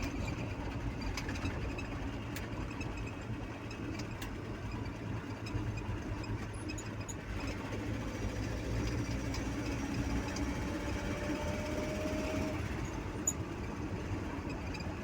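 An engine running steadily with a low rumble, and a faint tone slowly rising in pitch partway through.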